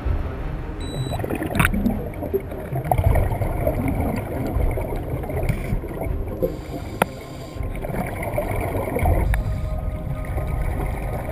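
Muffled underwater sound through a camera housing: a low rumble with irregular swells of bubbling from scuba divers' regulator exhalations, and a few sharp clicks.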